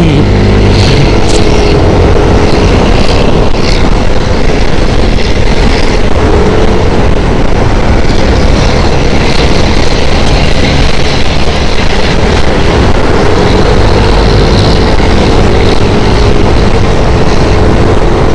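Heavy wind noise roaring over a helmet-mounted lapel mic while riding a motor scooter, loud and blown out, with a faint steady engine hum underneath.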